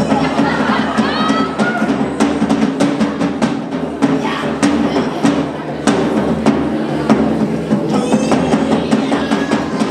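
Music with percussion: many sharp, quick hits over a steady low drone, with a few short rising glides.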